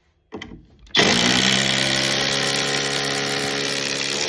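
Flex impact driver squeezed up to full speed and run steadily for about three seconds, then stopped suddenly.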